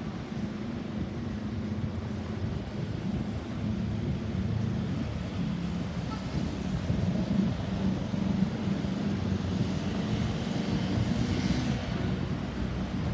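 Road traffic: vehicle engines running steadily, with a vehicle passing that grows louder through the middle and brings a brief rise of tyre hiss near the end. No siren is sounding.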